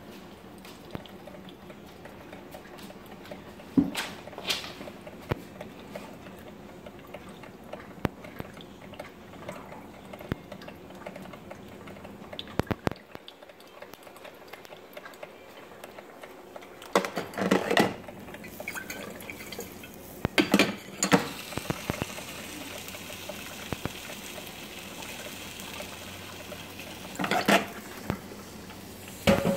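Drip coffee maker brewing: a steady hiss with dripping and small clicks, broken by several louder bursts of gurgling and sputtering.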